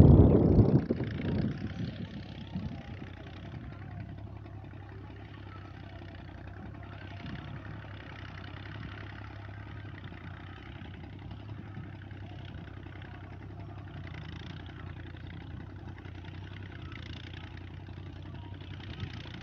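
Boat engine running steadily with an even low drone, after a loud rush of wind on the microphone that fades out over the first two seconds.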